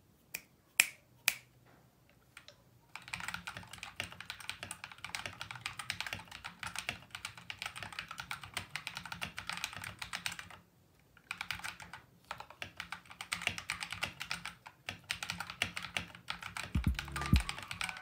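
Typing on a mechanical keyboard fitted with SA-profile keycaps. A few separate key presses come first, then fast continuous typing starts about three seconds in, with a brief pause a little past the middle.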